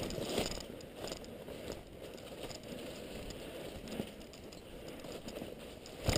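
Faint rustling and light crackling with scattered small clicks, and a sharper click at the very end.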